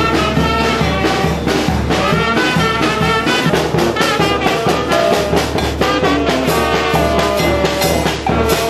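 Small street brass band playing as it marches: trumpet, saxophones and sousaphone over a steady bass drum and snare drum beat.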